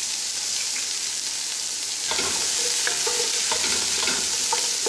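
Chopped celery, onion and garlic sizzling steadily in hot oil in a large aluminium pot. From about two seconds in, a wooden spoon stirs them, scraping and knocking against the pot's base and sides, and the metal rings briefly.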